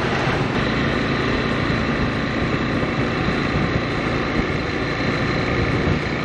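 Motorcycle running at a steady speed on the move, its engine hum under a continuous rush of riding noise.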